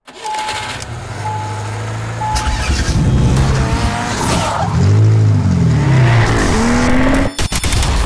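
Logo intro sound effect: three short beeps about a second apart, then a car engine revving with pitch rising and falling, mixed with tyre squeal.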